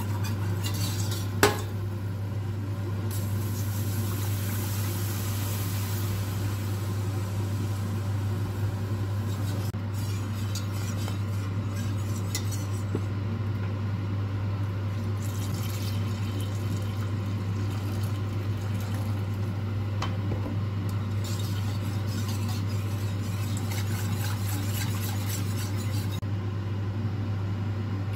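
Wire whisk stirring and clinking against a stainless steel pot as milk is poured into a roux for béchamel sauce, with a sharp clink about a second and a half in. A steady low hum runs underneath.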